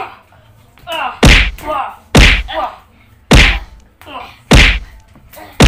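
Children's hands striking each other's bodies in a rough slapping game: five loud whacks about a second apart, with short vocal cries between them.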